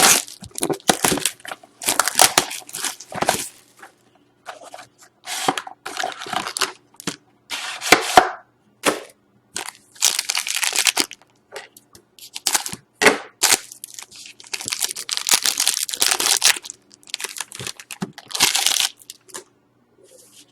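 Plastic wrap and packaging of a hockey card box being torn open and crinkled: a string of irregular crackling, tearing noises with short pauses between them.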